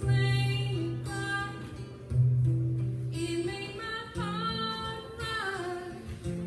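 Live worship band playing a song: voices singing a melody over acoustic guitar, bass and keyboard. Long held bass notes change about every two seconds.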